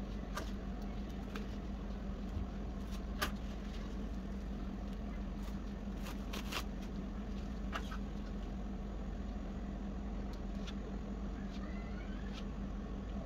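Plastic cling film crinkling and clicking now and then as gloved hands peel it off a chocolate log, over a steady low hum.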